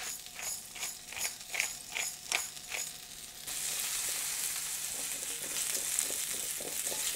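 A hand-twisted pepper and salt grinder cranking with a quick run of clicks, about three a second. About three and a half seconds in it gives way to a steady sizzle of diced potatoes frying in oil in a pan.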